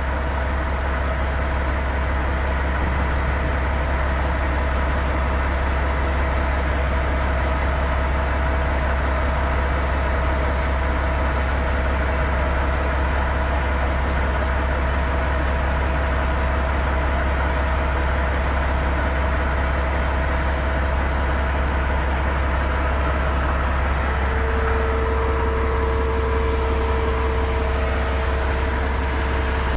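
Heavy diesel engine of earthmoving equipment running steadily at a constant low drone, with a steady higher whine joining about 24 seconds in.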